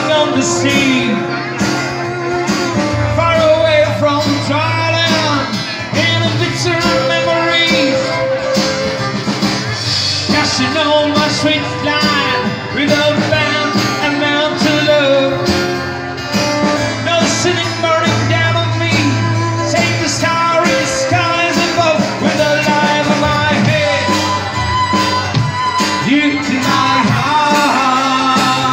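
Live band playing: violin, guitar and drums, with a singer.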